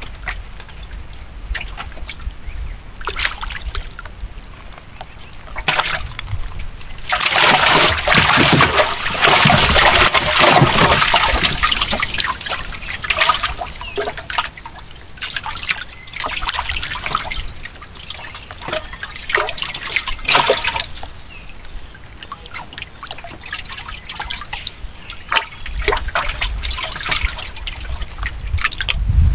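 Water trickling and splashing, with scattered small splashes and a louder stretch of dense splashing from about seven to twelve seconds in.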